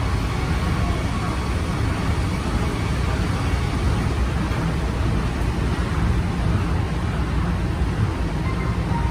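Interior running noise of a late-type Okinawa Yui Rail 1000 series monorail car cruising on its track beam: a steady low rumble. A faint thin whine comes in near the end.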